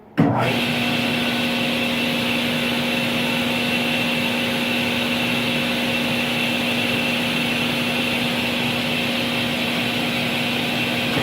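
Grizzly G1023RLW 10-inch cabinet table saw with its 3 HP, 240 V motor switched on about a quarter second in, spinning up at once and then free-running with no cut, a steady hum and a high whine. It runs smoothly enough that nickels stood on the table stay upright; the owner calls it really quiet.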